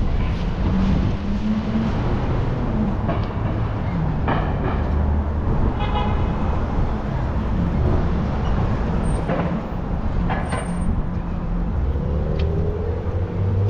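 City street traffic: cars running past with a steady low rumble, and a brief pitched sound like a car horn about six seconds in.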